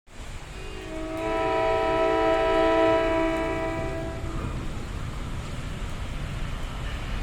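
NJ Transit train horn sounding one long blast of about three seconds, a chord of several notes, over a steady low rumble of the approaching train.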